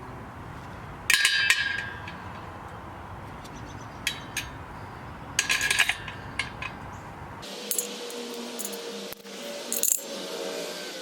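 Steel squat-stand parts and hardware clinking and clattering together during assembly: sharp ringing metallic clatters about a second in and again around five and a half seconds, with a few lighter clinks between.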